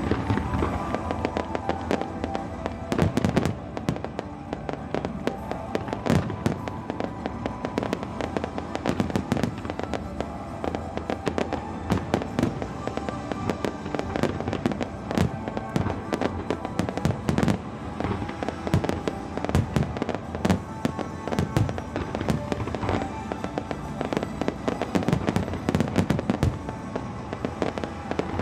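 Fireworks display: a dense, continuous barrage of aerial shell bursts and crackling bangs, many a second at uneven intervals, with music playing underneath.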